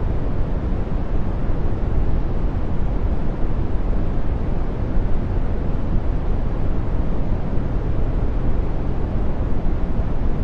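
Brown noise: a steady, even rush of random noise, deep and soft, with most of its weight in the low end and little treble.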